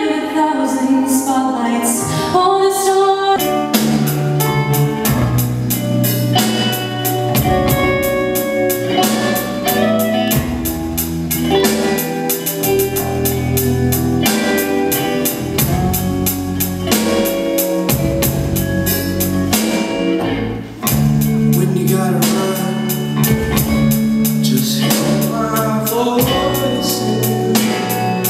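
A female voice singing a sustained line for the first few seconds. Then an electronic drum kit and an electric bass guitar play a steady rock beat, which drops out briefly about two-thirds of the way through before starting again.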